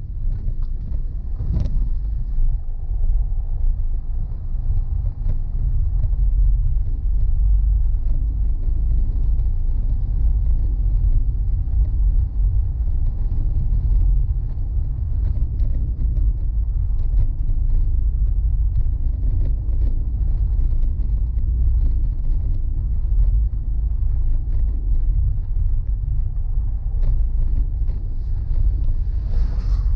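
Car driving over a paver-block road, heard from inside the cabin: a steady low rumble of tyres and engine, with scattered light ticks and rattles. There is a sharper knock about two seconds in and another near the end.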